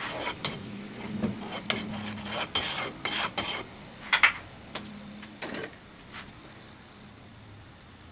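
A metal bar scraped across the rim of a steel molding flask, striking off excess molding sand: a run of gritty scrapes and metallic clinks that dies down after about six seconds.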